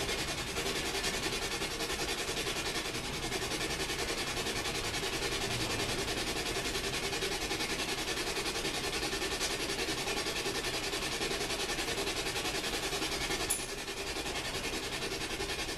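Spirit box (ghost box) radio scanning through stations, giving a steady, finely chopped hiss of static.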